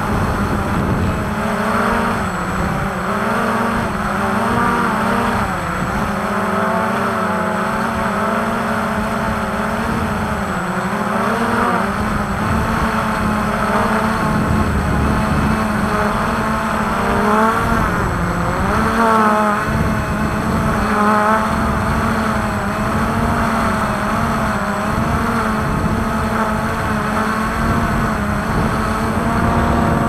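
Quadcopter drone's motors and propellers buzzing steadily, their pitch wavering up and down as the drone manoeuvres.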